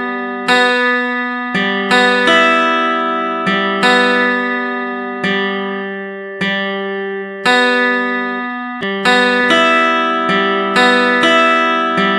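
Background music: slow plucked or struck notes, each starting sharply and fading, in an unhurried melody.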